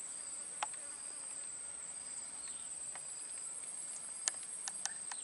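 Steady, high-pitched chirring of insects, unbroken throughout, with a few short sharp clicks about half a second in and again several times near the end.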